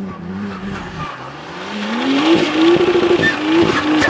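BMW E36 drifting in circles with its rear tyres spinning and squealing. The engine note dips, then climbs steadily from about a second in and holds high, wavering near the top, until it cuts off abruptly at the end.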